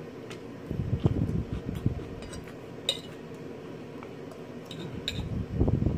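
Close-up chewing of a mouthful of lettuce salad, crunching in two spells, with a fork clinking against the plate a few times in between.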